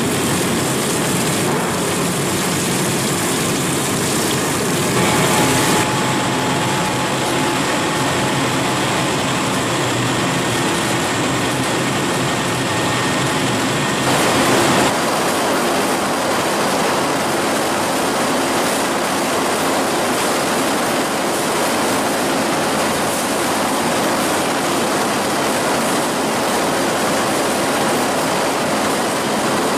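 Steady, loud din of food-processing plant machinery running. The sound changes abruptly about five seconds in and again about halfway through.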